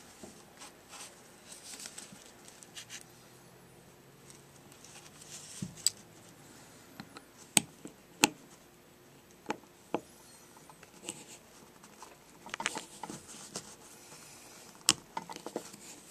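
Small metal clicks and scrapes of a screwdriver working on the metering-lever screw of a small two-stroke diaphragm carburetor held in the fingers. A handful of sharp clicks, with softer scratching and rustling between them and a quick run of scraping a little after halfway.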